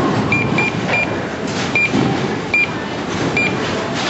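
Short electronic key beeps from a bowling lane's touchscreen keyboard, six in all and spaced unevenly, as a name is typed in. They sound over the steady din of a busy bowling alley.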